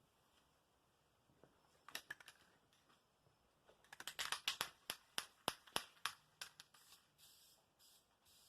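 A run of sharp, irregular clicks and taps, starting about two seconds in and thickest in the middle, dying away near the end.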